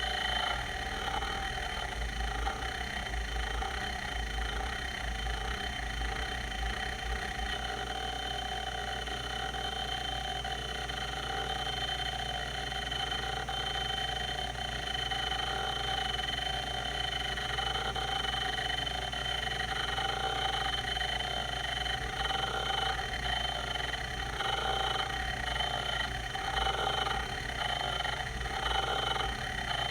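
Quantum Q540 hard drive running: a steady whine from the spinning platters, overlaid with a repeating pulsing pattern from the rotary voice-coil head actuator seeking. The pulsing grows stronger in the second half.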